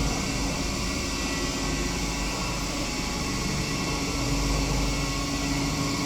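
Passenger lift car in motion: a steady hum and rushing noise of the car travelling, with a faint steady tone underneath.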